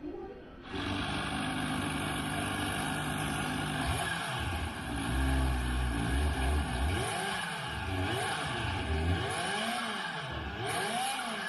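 Recorded engine and exhaust sound of a Kawasaki Z H2's supercharged inline-four, played through loudspeakers. It starts under a second in, runs steadily, then is revved up and down several times.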